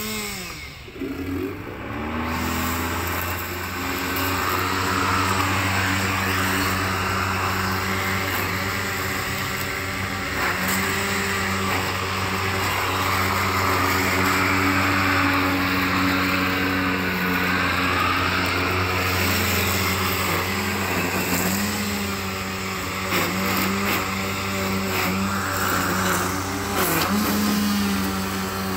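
EGO battery-powered lawn tool's electric motor spinning up in the first couple of seconds, then running steadily with a hum whose pitch wavers slightly.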